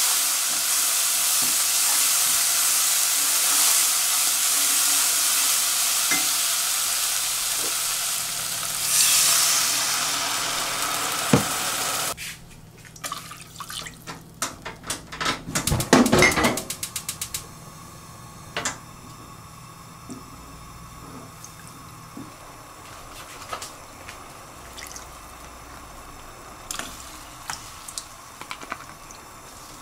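Green onions and chili bean paste sizzling as they fry in a pot, stirred with a wooden spatula. About twelve seconds in, the sizzle cuts off suddenly. Water is then poured in from a cup, loudest a few seconds later, followed by a quieter stretch with a few light knocks.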